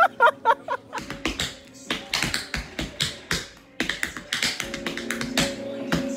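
Tap shoes striking a plywood tap board in quick, irregular rhythms of clicks, with music underneath that grows clearer about two-thirds of the way in.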